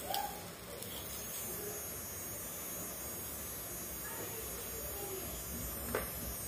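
Faint, steady hum of a small toy gear motor turning a plastic pencil sharpener as a pencil is sharpened in it.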